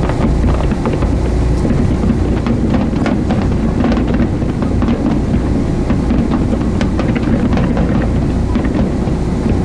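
Boat's engine running steadily, a constant low rumble with a steady hum, overlaid by many faint, short crackles.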